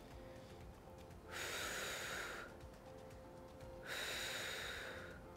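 A woman breathing hard twice during a dumbbell exercise, two strong breaths of about a second each, one about a second in and one about four seconds in.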